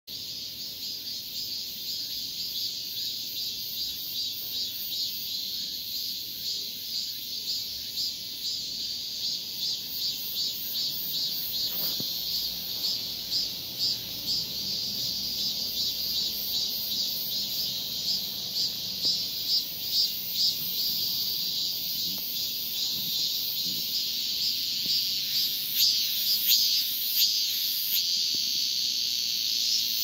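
Male cicada singing its calling song to attract a female: a loud, rhythmic 'maem-maem-maem' buzz of repeated pulses that grows louder toward the end.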